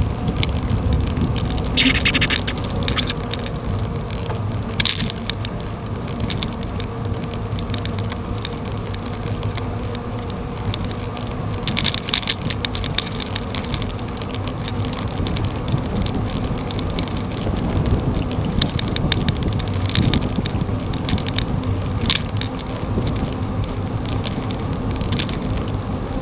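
Wind noise and road rumble on a camera riding along on a moving bicycle on a paved trail: a steady low rumble with several brief hissy gusts.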